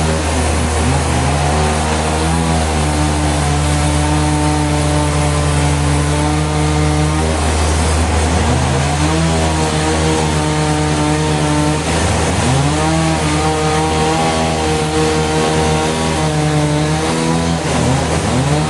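Sawmill engine running loudly as the saw cuts timber. Its pitch sags and recovers several times as the blade takes load.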